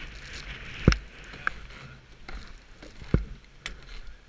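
Skis and ski boots thudding and knocking as a skier sets off, with sharp knocks about a second in and a louder one just after three seconds, over a soft hiss of skis sliding on snow.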